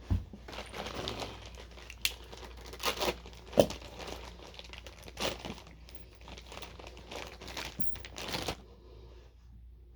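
Plastic packaging crinkling and rustling as it is handled, broken by sharp clicks, stopping about eight and a half seconds in.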